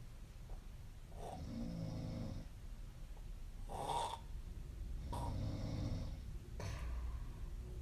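A young woman snoring in her sleep: two slow breaths, each a low snore followed by a short, breathy exhale.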